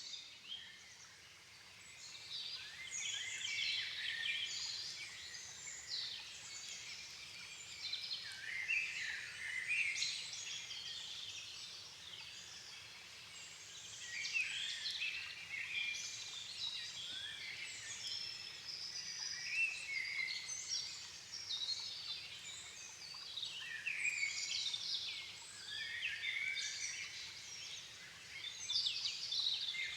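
Dusk chorus of several songbirds singing at once, short rapid phrases overlapping and swelling in waves every few seconds.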